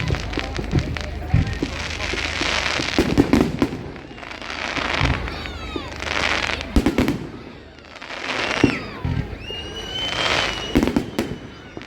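Fireworks display: repeated sharp bangs of bursting shells between swells of hissing and crackling, with whistles that slide in pitch.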